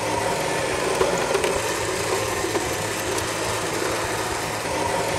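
Electric winch paying out under power, its motor running steadily as the drum unwinds steel wire rope through a roller fairlead while the rope is pulled out by hand to keep it from bunching on the drum.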